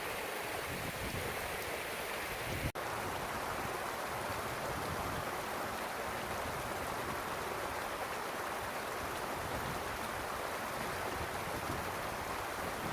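Steady rushing noise of wind and rain on open moorland, unbroken apart from a momentary cut-out about two and a half seconds in.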